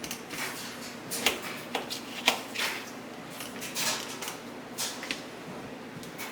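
A knife working a pear, coring out the seed pod: about nine light, irregular clicks and scrapes.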